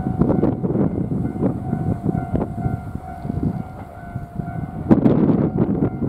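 Level-crossing warning signal ringing with a steady tone as a train approaches, over the train's low rumble; the sound swells louder about five seconds in.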